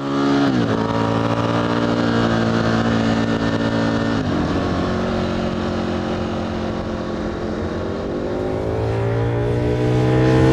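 Ronin 47 motorcycle's Buell 1125-derived Rotax V-twin running hard under way. The revs drop sharply twice, about half a second in and about four seconds in, then climb steadily as it accelerates toward the end.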